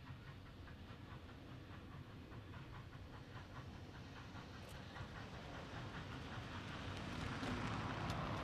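Victorian Railways K class 2-8-0 steam locomotive K153 working toward the listener, its chimney exhaust beating in a steady, regular rhythm. It grows louder as it draws near and is loudest near the end.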